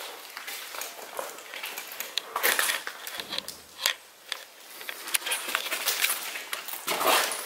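Footsteps and scuffing on a debris-strewn floor: irregular crunching and crackling clicks, with a few louder crunches.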